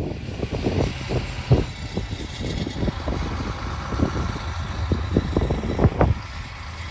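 Strong blizzard wind buffeting the microphone in irregular gusts, a string of low thumps over a steady low rumble and a rushing hiss.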